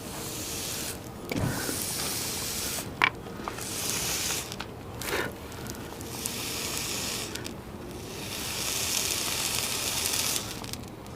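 A farrier working on a horse's hoof: four long, rough hissing passes with short breaks between them, and a few sharp clicks.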